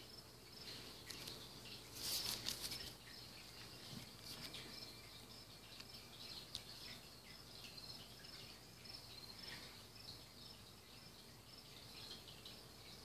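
Faint, continuous chirping of insects, with a brief rustle about two seconds in.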